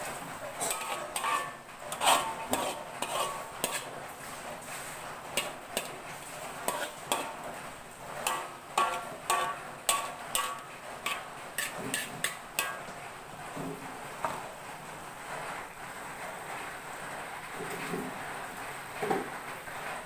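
Metal spatula scraping and clinking against an aluminium wok as bamboo shoots, mushrooms and greens are stir-fried with a little water. There is a quick, irregular run of clicks and scrapes for roughly the first twelve seconds, then the stirring stops.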